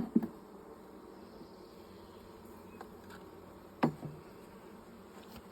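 Honeybees buzzing steadily around an open hive, with a short click at the start and one sharp knock about four seconds in.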